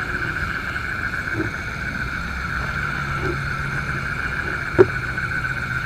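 Steady chirring chorus of night insects in a rice paddy, with a few short low calls and a sharp click about five seconds in.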